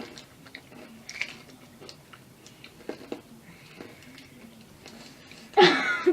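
Close-up chewing and crunching of a crisp rice-and-peanut snack, with scattered small crackles. Near the end comes a short, loud vocal sound with a falling pitch.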